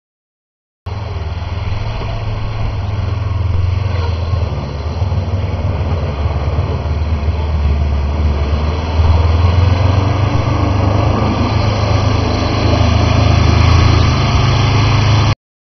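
Small 4x4 off-roader's engine, likely a LuAZ-969's air-cooled V4, running steadily under load through deep mud. It is a low drone that slowly grows louder, starting about a second in and cutting off abruptly near the end.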